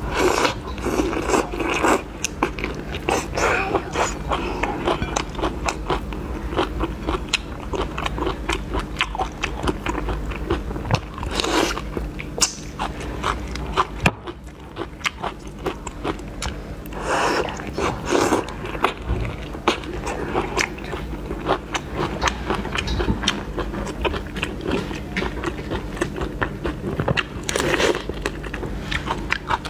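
A person biting into whole shrimp, crunching the shells and chewing, heard as a dense run of small crisp crackles with a few louder bites.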